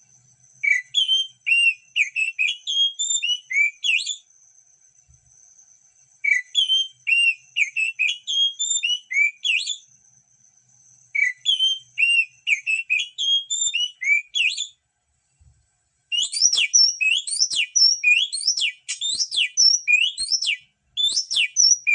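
Oriental magpie-robin (kacer) singing: three bursts of varied, fluty whistled phrases with short pauses between them, then, from about two-thirds of the way in, a fast run of rapid sweeping notes. A thin steady high note holds between the early phrases.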